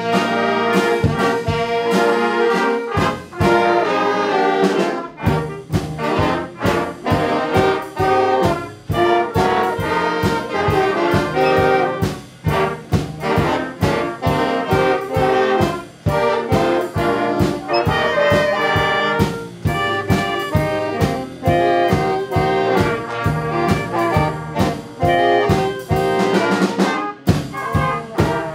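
Junior high school band playing a holiday classic, led by trumpets and trombones over a steady drum beat.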